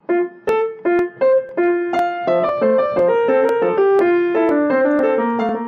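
Solo piano music playing a melody of single notes: a few separate notes at first, then a more flowing line.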